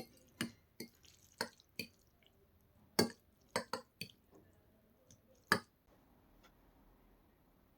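Sharp, separate clicks and taps of utensils against a dish or bowl, about ten at irregular spacing over the first six seconds.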